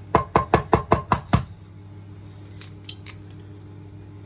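An egg tapped rapidly against the rim of a stainless steel mixing bowl to crack the shell: about seven sharp knocks in just over a second, each with a slight metallic ring, followed by a couple of faint clicks.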